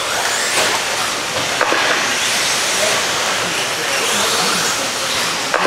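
Radio-controlled stadium trucks racing around a dirt track: a steady hiss of their motors and tyres on the dirt.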